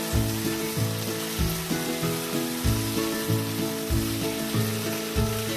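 Onion, tomato and spice masala sizzling as it fries in oil in a pan, with background music playing a steady beat underneath.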